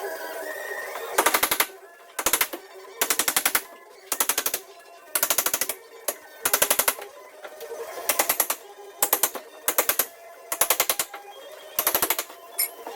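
Cordless impact driver hammering in about eleven short bursts of rapid blows, typical of screws being driven in, with music playing underneath.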